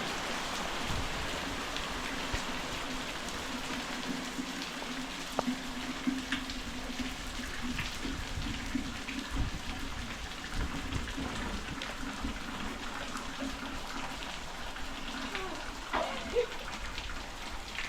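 Rain falling steadily: an even hiss with scattered drop ticks, over a faint low steady hum.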